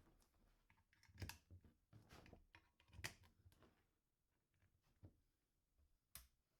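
Near silence with a few faint, scattered clicks and taps, the most distinct about three seconds in and just after six seconds.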